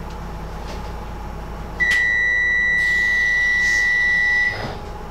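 A Docklands Light Railway train's electronic signal tone: one steady, high beep lasting about two and a half seconds, starting nearly two seconds in, over the low hum of the train.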